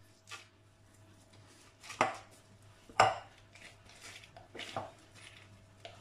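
Yeasted pizza dough being kneaded by hands in thin plastic gloves in a glass bowl: soft squishing and glove rustling, with two sharper knocks against the bowl about two and three seconds in. A faint steady hum runs underneath.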